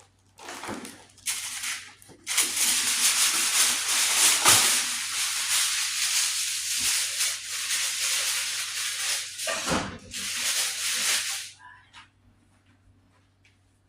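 A loud, steady hissing noise that starts about half a second in, breaks off briefly twice and stops about twelve seconds in.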